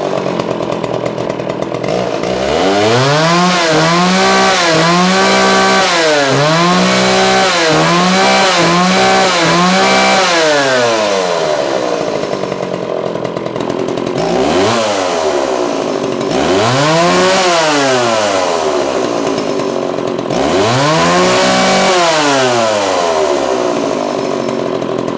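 Vintage Homelite 360 Automatic two-stroke chainsaw running and being revved. It gives about eight quick throttle blips over the first ten seconds, then idles. Three longer revs rise and fall back to idle, and it idles near the end.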